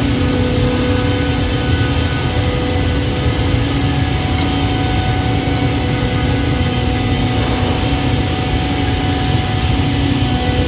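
CNC scroll saw running steadily, a loud constant mechanical hum with a higher hiss that eases off from about two seconds in and returns near the end.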